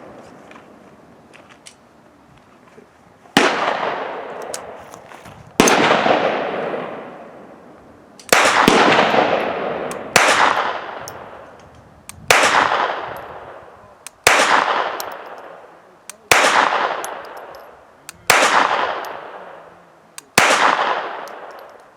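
Beretta 21A Bobcat .22 LR pocket pistol firing Aguila standard-velocity rounds one at a time, a shot about every two seconds starting a few seconds in, each shot echoing and dying away slowly. The rounds all cycle the action without a jam.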